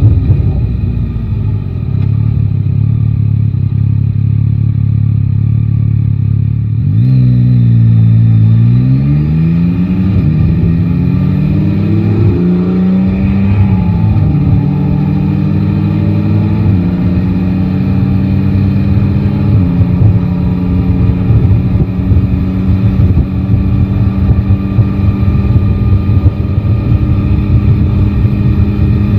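Yamaha Tracer 9 GT's 890 cc inline-three engine running steadily, then pulling away about seven seconds in and accelerating through several upshifts, each a rise in pitch cut off by a drop, before settling into a steady cruise. Low wind rumble on the microphone underneath.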